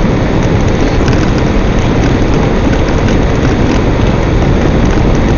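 Vehicle driving along a frosty dirt road: steady engine and tyre noise heard from inside the cab.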